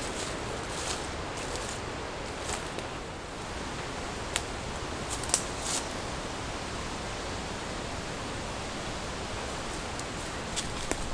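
Forest ambience: a steady rustling hiss of leaves in the wind, with a few short, sharp snaps of twigs underfoot on the forest floor about four to six seconds in.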